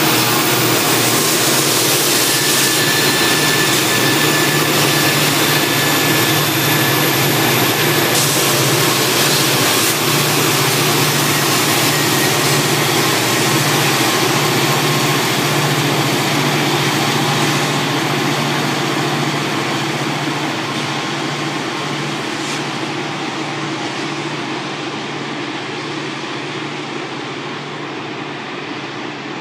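Norfolk Southern SD40E pusher locomotives working at full throttle as they pass, shoving a loaded coal train up a steep grade: a loud, steady diesel drone with a strong low hum that fades away over the last ten seconds or so as they recede.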